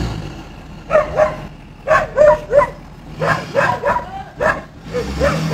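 A dog barking repeatedly: over a dozen short, sharp barks in quick bursts.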